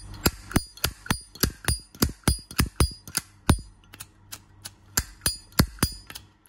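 Brushed-chrome Zippo lighter being flicked open and snapped shut over and over, a sharp metallic clack about three times a second with a bright ring on each.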